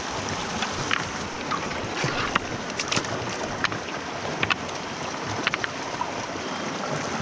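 Rushing river water, with a dozen or so short, sharp clicks and knocks scattered through it.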